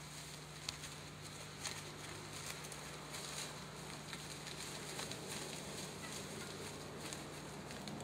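Dry fallen leaves rustling and crackling as a wild turkey, just hit by an arrow, flops and scrambles across the forest floor. There are scattered small crunches, with two sharper cracks in the first two seconds.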